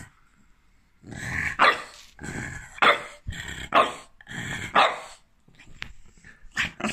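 French bulldog growling and barking in four bursts about a second apart. Each one is a grumble that rises into a sharp bark, followed by shorter, softer grumbles near the end.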